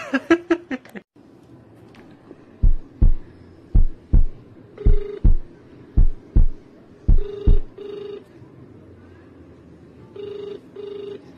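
Telephone ringback tone of an outgoing call: short rings in pairs, repeating about every three seconds from about five seconds in. Over the first half, a heartbeat sound effect of paired low thumps, about one pair a second, stops about seven and a half seconds in.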